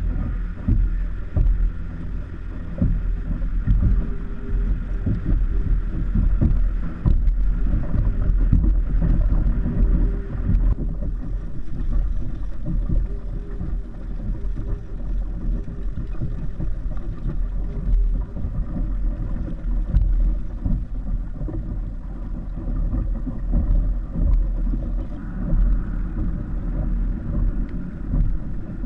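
Wind buffeting the microphone and water rushing along a kite-pulled kayak under way: a continuous low rumble that keeps wavering in level.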